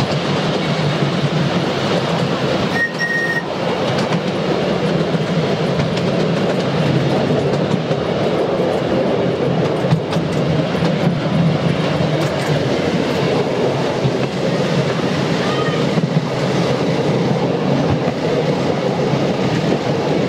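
Ride-on miniature railway passenger train running along the track, with a steady rumble and clickety-clack of small wheels on the rails, heard from a seat on the carriages as it runs through a tunnel and out into the open. There is a brief high tone about three seconds in.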